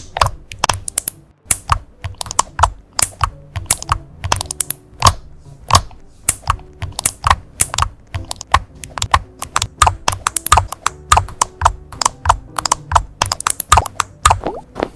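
Computer keyboard being typed on, keys clicking in quick, uneven succession, several strokes a second.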